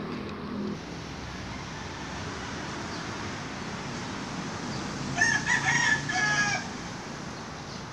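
A rooster crowing once, about five seconds in, a crow of about a second and a half in several connected parts, over steady background noise.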